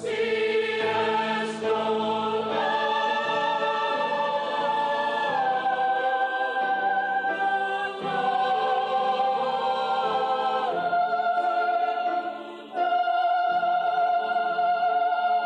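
Youth mixed choir singing in harmony, holding sustained chords that move in steps from one chord to the next. There is a short break about twelve and a half seconds in before the next phrase begins.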